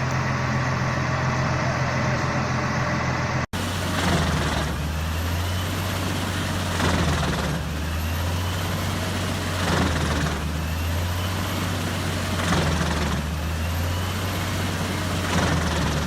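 Heavy diesel engine of a forestry wood chipper running steadily. About a third of the way in the sound cuts off sharply and comes back as a lower engine drone, with a surge of grinding noise about every three seconds as the chipper takes in wood.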